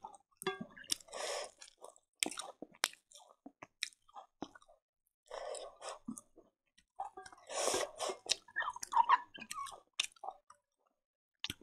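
Close-up chewing of fried silkworm pupae mixed with rice, eaten by hand: wet mouth sounds in uneven bursts with small sharp crunches and clicks, pausing briefly near the end.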